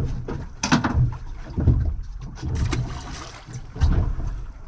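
Gusting wind rumbling on the microphone aboard a small open boat, with a few sharp knocks and clicks, the loudest about a second in.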